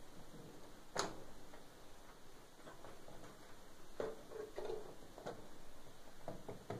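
Faint clicks and light rattling of hands handling wires and push-on connectors on an electric oven's switch terminals, with a few sharp clicks, the loudest about a second in.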